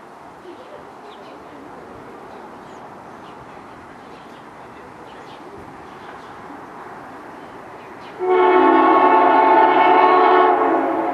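Horn of an approaching Amtrak Keystone train, cab car leading, sounding one long blast of several notes at once about eight seconds in and cutting off after about two and a half seconds. Before it there is only a low steady rumble.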